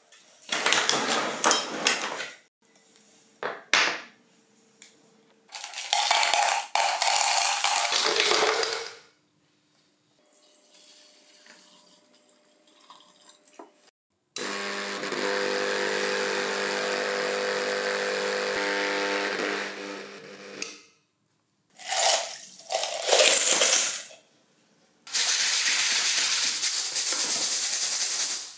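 A vibratory tumbler is switched on at its dial and runs for about six seconds with a steady hum, then stops. Before and after it come separate bursts of clattering and rustling noise as loose metal parts are handled.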